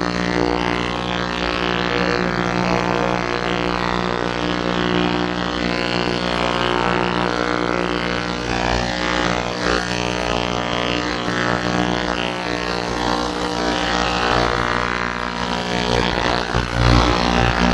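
GERCY 800 ml ultrasonic jewelry cleaner running a cleaning cycle, its transducers giving a loud, steady buzzing drone.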